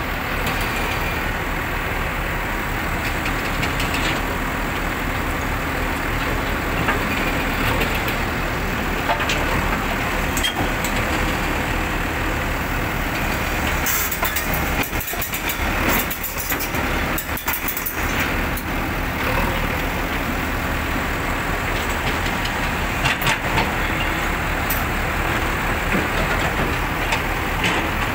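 Komatsu PC130 hydraulic excavator running, its diesel engine working under load as it moves its tracks and boom at the trailer's edge. Scattered sharp clanks come through, most of them around the middle.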